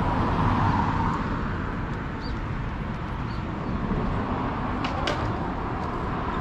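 Steady outdoor low rumble, such as traffic or wind noise, with a couple of faint clicks about five seconds in.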